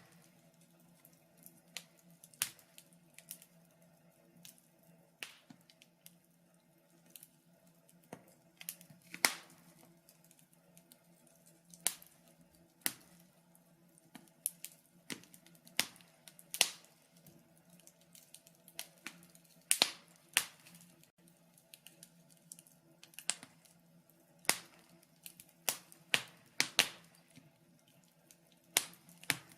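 Wood fire crackling, with irregular sharp pops and snaps every second or two over a faint steady low hum.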